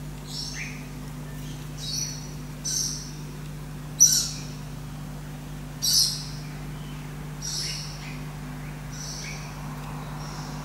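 A series of short, high-pitched chirping squeaks, about nine of them at uneven intervals, the loudest about four and six seconds in, over a steady low hum.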